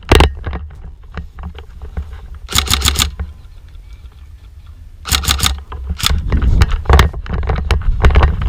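Airsoft gun firing in short rapid bursts of sharp clicking shots, about four shots per burst, two bursts close together in the middle followed by several single and double shots, over a constant low rumble of handling noise on the camera.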